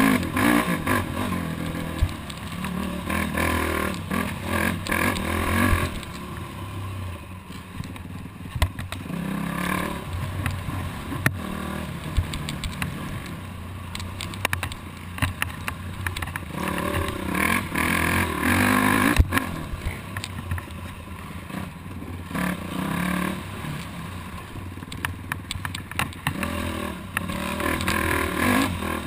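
Yamaha YFZ 450R quad's single-cylinder four-stroke engine revving up and easing off again and again as it is raced along a rough trail, with several sharp knocks and clatter from the machine over the bumps.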